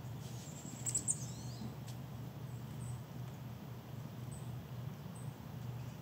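Chestnut-backed chickadee giving high, thin calls: a quick cluster of short notes with falling glides about a second in, then a few faint single chirps. A steady low hum runs underneath.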